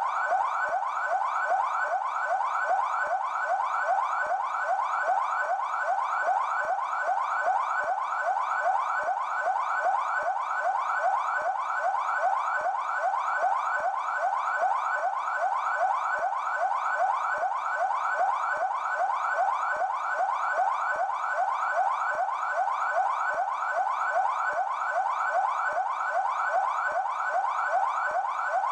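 São Paulo Military Police (PMESP) car siren sounding its yelp tone, a fast electronic wail sweeping in pitch about three times a second, evenly and without a break.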